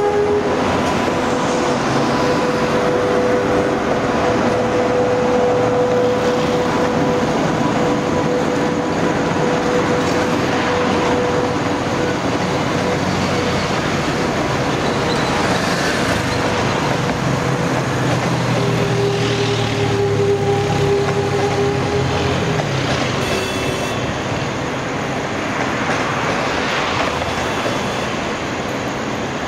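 Locomotive-hauled passenger train rolling past on the rails: a steady rumble and running noise of wheels and coaches, with a thin steady whine through the first half.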